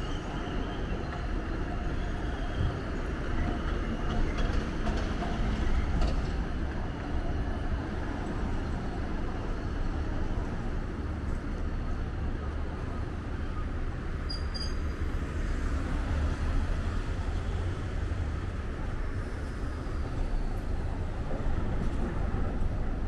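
Kumamoto City Tram 1200-series streetcar pulling away along street track and running off, a steady low rumble with a faint motor hum in the first few seconds, mixed with passing road traffic.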